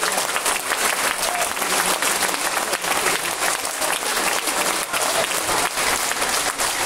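Audience applauding steadily, a dense mass of hand claps, with performers on stage clapping along.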